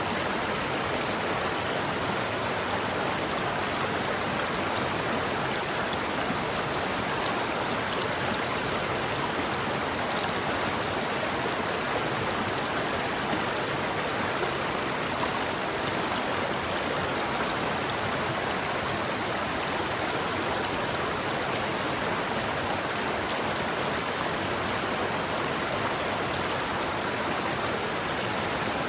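River water flowing steadily, an even rushing and babbling without breaks.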